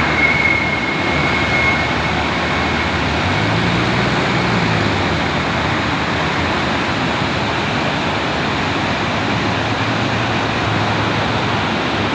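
Mountain river rushing, a steady loud wash of flowing water. A faint high tone sounds over it for the first two seconds.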